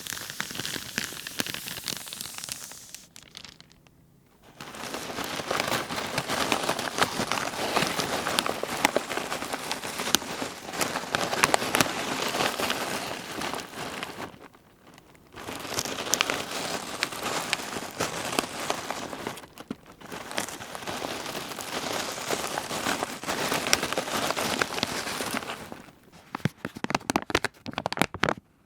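Plastic sheeting being crumpled and crinkled in long stretches of dense crackling, broken by a few short pauses, with sparser separate crackles near the end.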